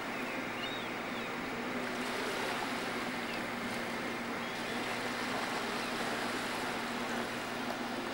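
Steady drone of a large car ferry under way, with an even rushing noise of water and wind.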